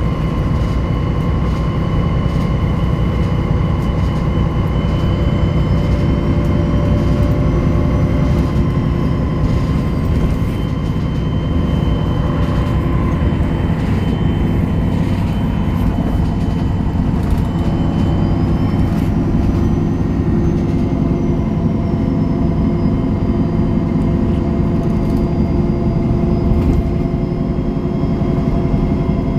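Interior ride sound of a 2003 MAN NG 313 (A23) articulated city bus: a steady diesel engine drone with rattles from the body and fittings. Over it runs a steady whine, and a faint high whine rises and falls twice.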